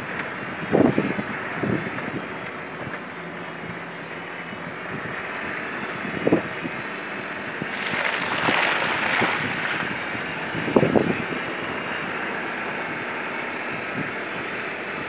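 Nissan Patrol GR Y61 being driven along a rutted dirt track, heard from inside the cabin: steady engine and road noise with a few short dull thuds, and a louder rushing hiss for about two seconds just past the middle.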